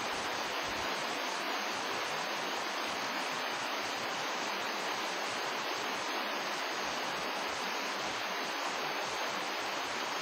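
A steady rushing noise that holds an even level throughout, with no speech and no distinct events.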